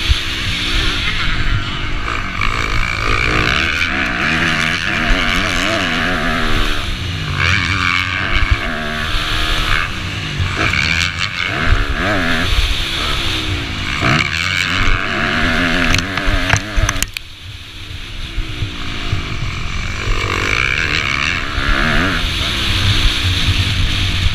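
Motocross dirt bike engine heard from the rider's helmet, revving hard with its pitch climbing and falling again and again as it is ridden round a dirt track. The engine drops away briefly about two-thirds of the way through, then picks up again.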